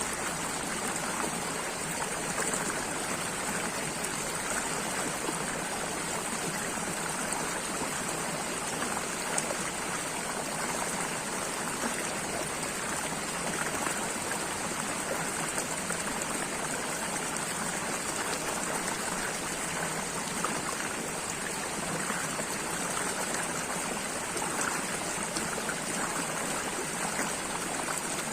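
Running water, a steady unbroken rush with no pauses or changes.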